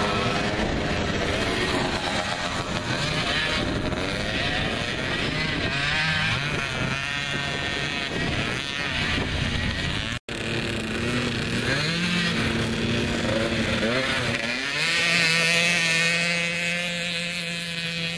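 Small off-road engines of youth mini quads, revving with the pitch rising and falling as the throttle opens and closes. The sound breaks off for an instant about ten seconds in, and near the end an engine holds a steadier note.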